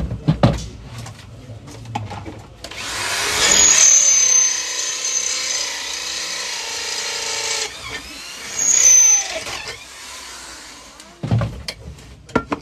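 Electric hand drill boring into a black metal frying pan: a whine with a wavering pitch for about five seconds, then a second, shorter run. Sharp metal clicks and taps near the start and again near the end.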